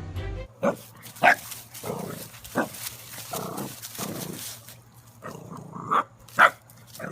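A dog barking: about five sharp, loud barks spread irregularly, with softer barks and noises from the dog between them.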